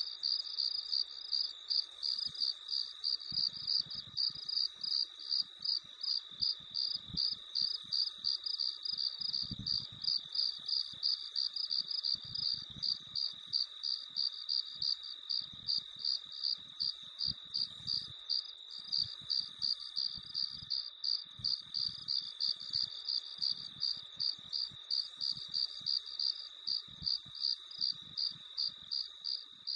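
Crickets chirping: a steady high trill with regular, evenly spaced chirps that keep on without a break.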